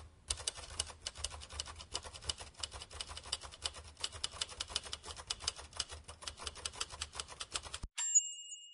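Typewriter keys clacking in a fast, steady run of keystrokes, then a typewriter bell dings once near the end.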